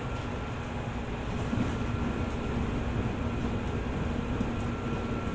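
Running sound heard inside a JR 205 series 600 electric train in motion: a steady rumble of wheels on rail with a constant hum. It gets slightly louder about a second and a half in.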